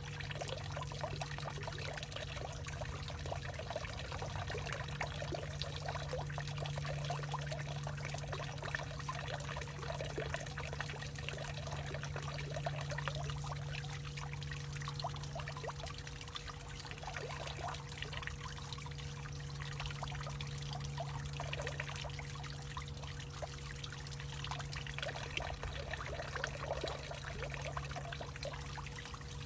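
Water trickling and pouring in a hollowed-out tree, a continuous stream of small splashes, with a steady low hum underneath.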